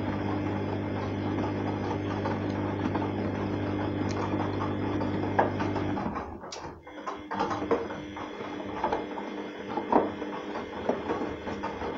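Arçelik 3340 SJ front-loading washing machine in its wash cycle: the drum motor hums steadily as the drum turns the wet, sudsy laundry, then the hum cuts out about six seconds in, leaving quieter sloshing of water and laundry with scattered knocks as the machine moves on to heating its water.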